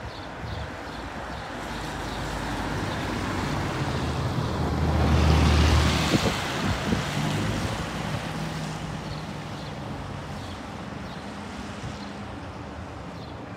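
BR Class 24 diesel locomotive's Sulzer six-cylinder engine running as the locomotive moves slowly along the track. The drone swells louder about five seconds in, then eases back to a steady run.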